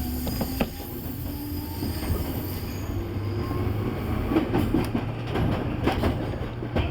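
Running noise of a Nambu Branch Line electric commuter train under way, heard from inside the front car: a steady low rumble of wheels on rail, broken by a few sharp clacks.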